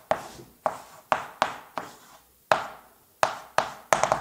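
Chalk writing on a blackboard: a string of sharp taps, each followed by a short scrape, as numbers and plus signs are written. About a dozen strokes come at an uneven pace, with a pause of under a second near the middle.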